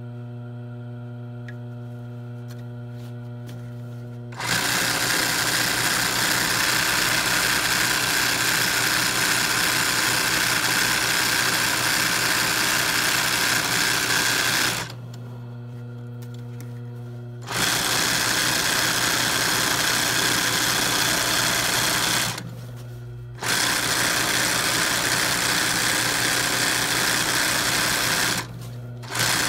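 ROYAL industrial sewing machine stitching machine embroidery at high speed in long runs. The first run starts about four seconds in. There is a break of about three seconds in the middle and two short breaks of about a second later on. A steady electric hum carries on through each break.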